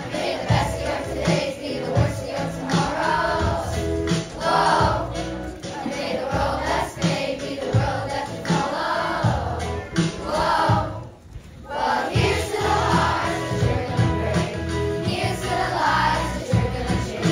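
Children's choir singing a song in unison over instrumental accompaniment with a steady low beat, with a short break in the singing about eleven seconds in.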